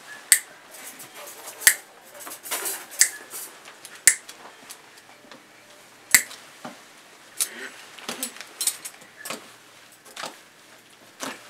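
Sharp metallic snips and clicks of steel surgical instruments cutting at a chest incision while it is being reopened, with about five loud snaps in the first six seconds and fainter, irregular clicks after.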